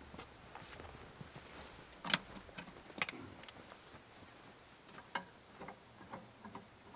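A few light knocks and clicks, scattered and irregular: two louder ones about two and three seconds in and another a little after five seconds, with fainter ticks between.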